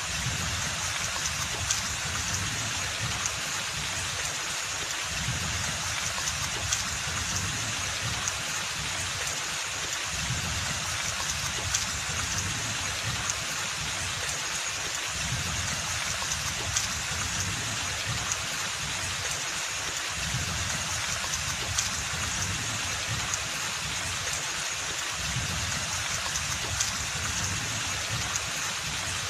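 Steady rain falling in a forest, a dense even hiss with a low rumble beneath and single louder drops about every five seconds.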